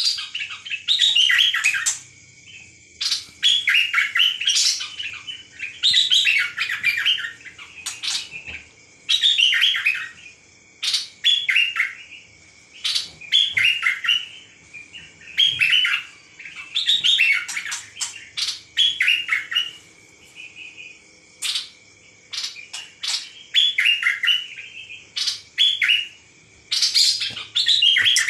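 A songbird, the Thai cage bird called nok dok taeng, singing loud bursts of rapid chirping notes, one phrase about every two to three seconds. A faint steady high tone sits beneath the song.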